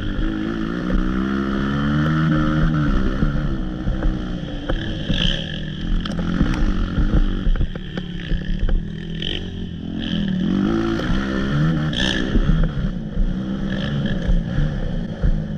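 Motocross dirt bike engine revving on a trail ride, its pitch rising and falling over and over as the throttle is worked.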